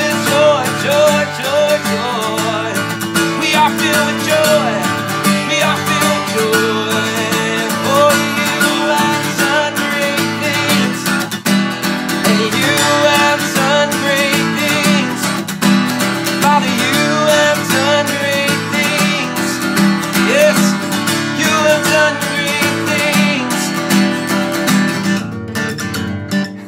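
Acoustic guitar strummed in chords, keeping a steady accompaniment with the chords changing every second or so.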